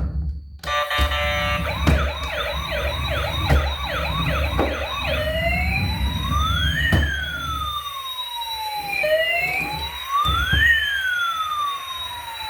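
Electronic siren from a toy emergency vehicle. For the first few seconds it gives a fast yelp of quick rising sweeps, about two a second, then changes to slow wailing rises and falls. Under it are a low rumble and a few knocks.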